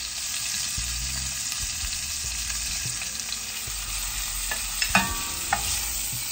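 Beef short ribs searing in a very hot stainless steel pot, giving a steady sizzle. About five seconds in, metal tongs clink against the pot a couple of times, with a short ring, as the browned ribs are lifted out.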